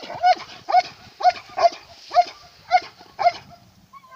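Belgian Malinois barking steadily, about two barks a second, at a helper standing in the blind: the bark-and-hold of protection training after a blind search. The barks pause briefly near the end.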